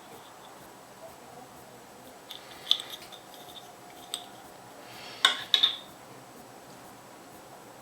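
Hands handling small plastic toy pieces and packaging: a few sharp clicks and taps. The loudest is a pair of clicks about five seconds in.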